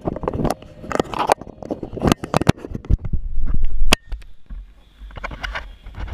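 Handling noise from fingers on the camera right by its microphone: an irregular run of clicks, taps and scrapes, with a low rumble about three seconds in and again near the end.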